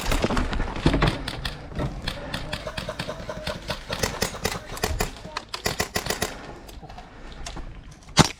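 Airsoft gunfire: many sharp snapping shots in quick, uneven succession, with the loudest shot just before the end.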